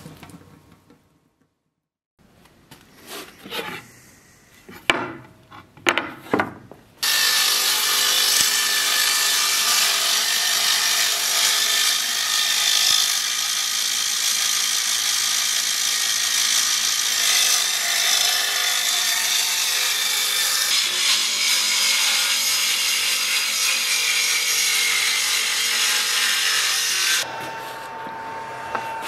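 Woodworking surface planer (jointer) running and planing a wooden board: a loud, steady machine noise that starts suddenly about seven seconds in, after a few knocks of wood being handled. It cuts off near the end, leaving a fainter steady hum.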